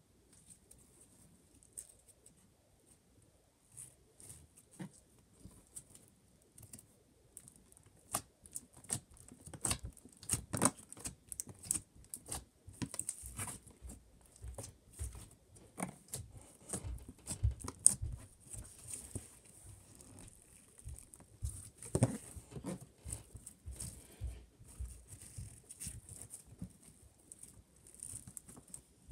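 Slime being squeezed, pressed and stretched by hand, making irregular wet clicks and pops. They are sparse at first and come thick and fast from about eight seconds in.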